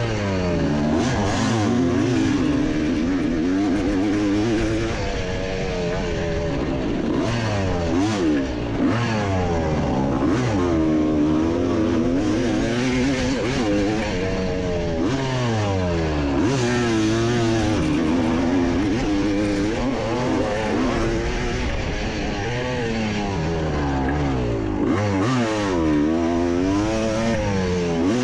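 1981 Yamaha YZ250's two-stroke single-cylinder engine racing on a motocross track. The revs climb and drop again and again as the rider works the throttle through the gears.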